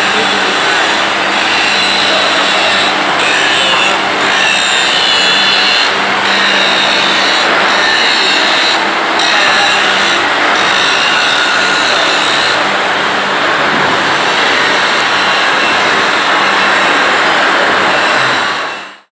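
Metal fabrication shop noise: an angle grinder grinding steel over a steady machinery hum, loud and continuous, fading out near the end.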